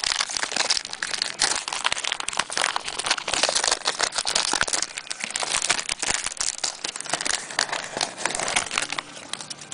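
Wrapper of a Topps Jumbo basketball card pack being torn open and crinkled by hand: a continuous crackling rustle that dies down near the end.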